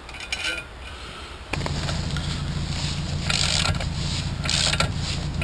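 Socket ratchet tightening the nut on an outboard's stainless steel propeller: short rasping ratchet strokes, two of them in the second half, over a steady low hum that comes in about a second and a half in.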